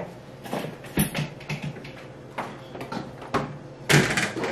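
Scattered light clicks, taps and knocks of objects being handled, about one every half second, with a louder clattering burst about four seconds in.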